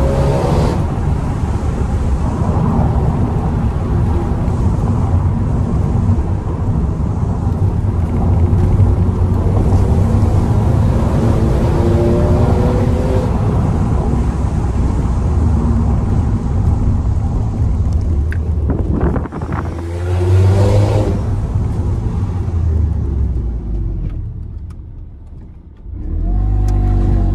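VW Golf Mk5 1.4 TSI twincharged engine running with the catalytic converter removed (decat downpipe), blipped several times, each rev rising and falling back. The sound drops away for a couple of seconds near the end and then picks up again.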